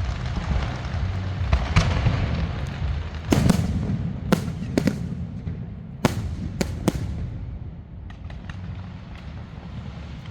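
Fireworks going off: a dense crackling over a low rumble, then about six sharp bangs of bursting shells between three and seven seconds in, with the crackle dying down near the end.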